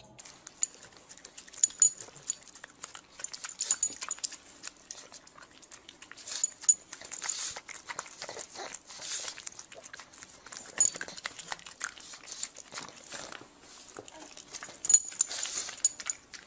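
Pug snuffling and licking right at the microphone: irregular short wet smacks, clicks and puffs of breath.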